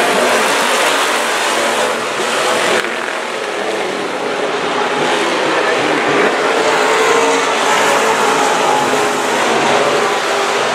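Several hobby-class dirt-track stock cars racing together around the oval, their engines running hard. The sound drops a little about three seconds in and builds again as the pack comes back around.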